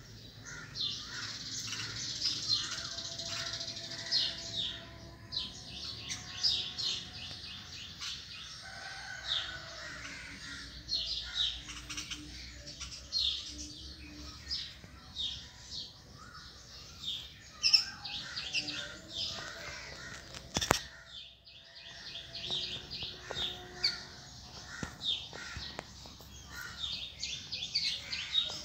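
Many small birds chirping without a break in a dense chorus of short, high chirps, with one sharp click about twenty seconds in.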